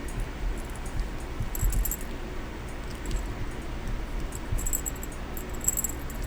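Light metallic clinking and small clicks from handling tiny metal craft parts, in a few short clusters over a low rumble of handling.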